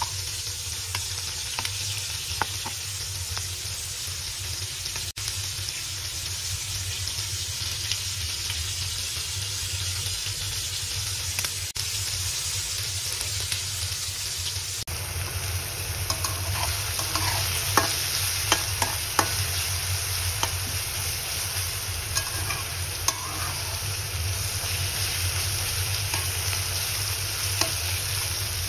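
Shrimp frying in bubbling oil in a pan: a steady sizzle, with scattered clicks and scrapes from a metal spatula stirring them.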